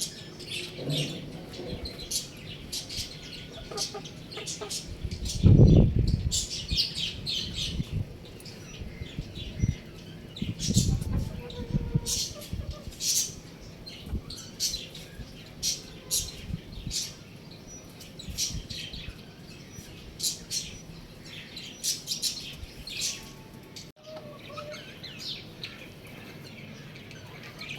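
Birds chirping in many short, high calls, with two louder low thuds about five and eleven seconds in.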